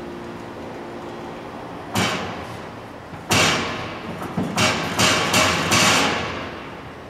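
Grand piano with objects laid on its strings, played in hard, percussive strikes: a held tone dies away, one sharp hit comes about two seconds in, and a cluster of loud strikes follows from about three seconds on, each ringing out.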